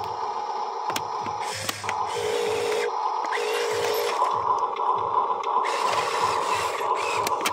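Small electric motor and plastic gearing of a Huina RC dump truck whirring steadily, with short breaks and shifts in pitch about two and four seconds in.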